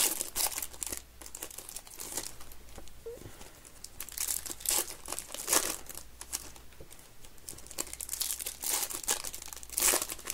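Foil trading-card pack wrapper crinkling and tearing as it is opened by hand and the cards are pulled out, in irregular bursts of rustling.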